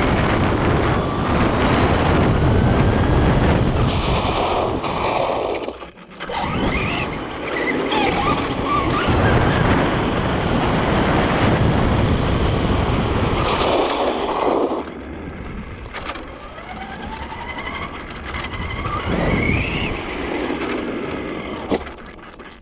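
Traxxas RC truck driving fast on wet asphalt, heard from a camera mounted on the truck: loud rushing tyre and road noise with the motor's whine rising and falling as it speeds up and slows. The noise cuts out briefly about six seconds in and is quieter over the last third.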